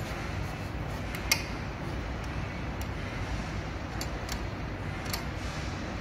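Several light clicks as a retaining nut is handled and turned by hand onto an electric scooter's charging port, the loudest about a second in, over a steady low background rumble.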